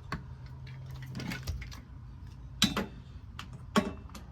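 Tools and metal objects being moved about while rummaging for a hammer: scattered clicks and knocks, with two louder knocks in the second half, over a steady low hum.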